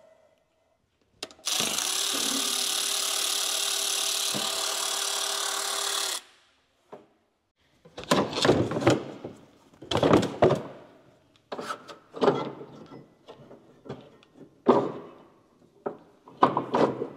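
Cordless power tool running steadily for about five seconds, backing out one of the tractor fan's mounting bolts. Then a series of irregular clunks and scrapes as the fan is worked loose.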